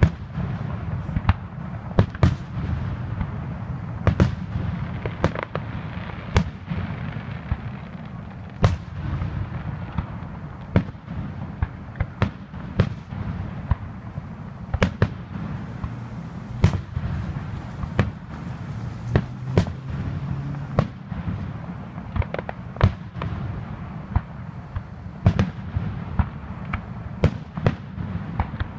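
Aerial firework shells bursting in quick succession: sharp bangs at irregular spacing, about one a second, over a steady low rumble.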